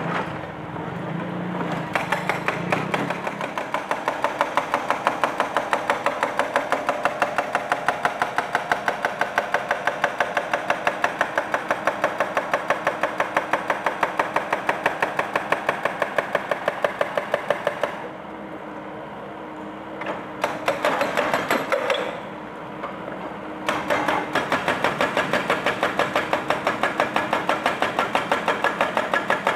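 Excavator-mounted hydraulic breaker hammering concrete in a fast, even train of blows over the excavator's running engine. It stops twice briefly about two-thirds of the way through, then starts hammering again.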